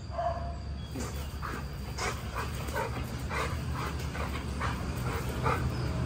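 A dog whining, then letting out a quick run of short excited yips, about two or three a second, while begging for food held above it. A steady low hum runs underneath.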